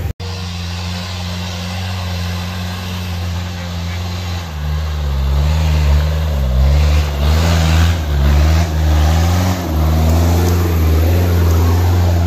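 4x4 off-road vehicle's engine running steadily, then rising and falling in pitch from about four seconds in as the throttle is worked under load.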